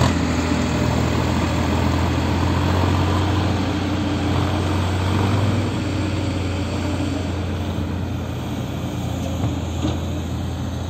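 Sonalika 35 tractor's diesel engine running steadily under load as it pulls a trolley heaped with sand, its hum slowly fading as the tractor moves away.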